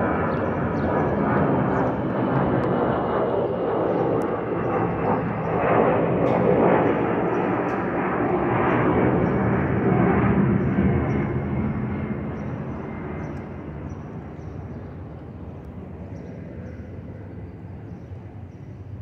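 Twin-engine jet airliner passing overhead: a steady jet roar that swells to its loudest about halfway through, then fades away over the last several seconds as the aircraft moves off.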